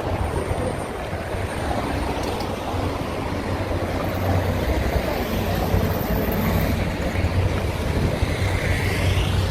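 Steady street noise with a low rumble of traffic.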